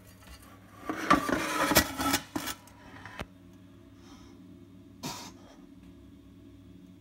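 A steel scraper scraping and rasping through fine coal ash in a boiler's metal ash pan, starting about a second in, with a sharp metal click and one more short scrape later, over a steady low hum.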